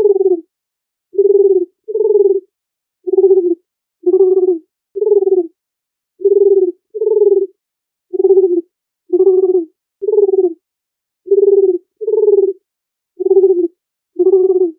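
Dove cooing: a long series of short, low coos, about one a second.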